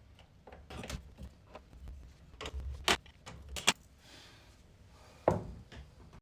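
Scattered clicks and knocks of tools and plastic parts being worked while a washing machine's drain pump is unfastened, with three sharp knocks: about three seconds in, near four seconds and just past five seconds.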